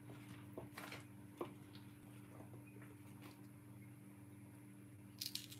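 Near silence: a faint steady hum, a few soft clicks as wooden kebab skewers are handled, and a brief crackle near the end.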